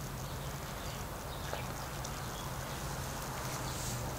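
Quiet background ambience with a steady low hum and no distinct event.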